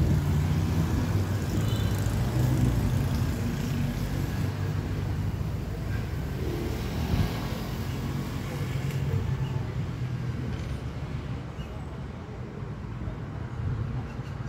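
Low, steady engine rumble that slowly grows quieter.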